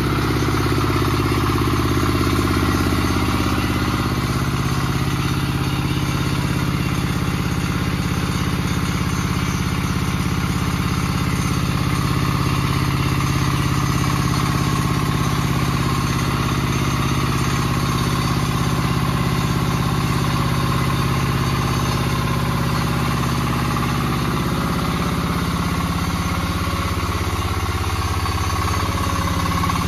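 Changfa single-cylinder diesel engine running steadily, belt-driving a 6N70 rice huller-polisher that is milling paddy, the mill's whirring mixed in with the engine's even beat.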